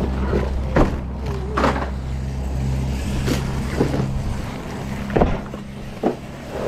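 Shrink-wrapped cases of bottled drinks being handled and set down: plastic crinkling and several sharp knocks. Under them runs a steady low engine hum that thins out a little over halfway through.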